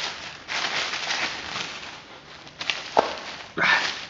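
Black plastic bag rustling and crinkling as it is handled and opened, in several bursts, with a sharp click about three seconds in.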